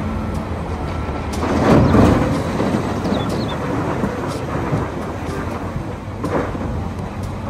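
A wheel loader's bucket load of earth pouring into a steel dump truck bed, a heavy rushing rumble that is loudest about two seconds in, with the diesel engines running underneath.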